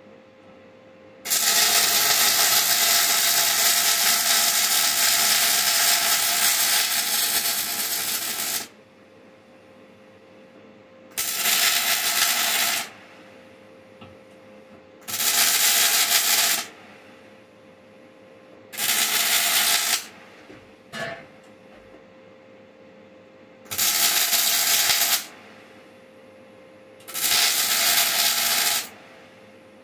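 Welding arc crackling and hissing on a car bumper: one long bead of about seven seconds, then short bursts of a second or two about every four seconds, laid as stitch welds. A faint steady hum sounds between the bursts.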